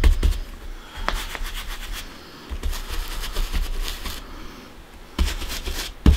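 Paintbrush scrubbing acrylic paint through a stencil onto a fabric tea towel. It comes in several short bouts of rapid scratchy strokes, with a few dull knocks near the start and near the end.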